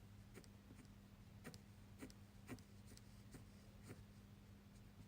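Faint scratching and tapping of a fineliner pen's fine tip on paper in short, irregular strokes, about one every half second to second, as the artist darkens areas with small lines. A faint steady low hum runs underneath.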